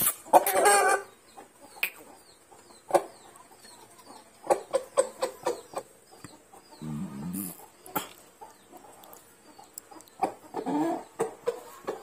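Chicken clucking: a loud call just after the start, scattered short clucks, and another call near the end.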